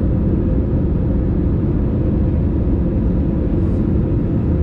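Steady cabin noise of an easyJet Airbus airliner in flight on its descent, heard from a window seat near the wing: a deep, even rumble of the jet engines and rushing air, with a faint steady hum.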